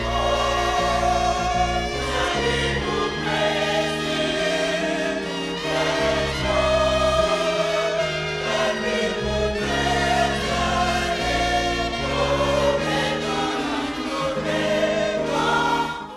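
Choir singing gospel music over instrumental backing with a steady bass line, fading out at the very end.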